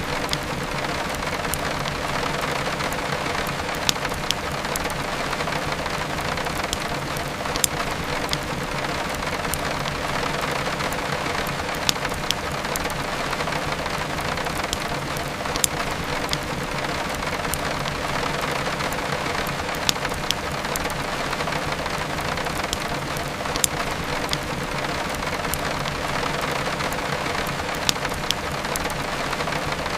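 Steady heavy rain, with a sharp pop from a crackling wood fire every few seconds.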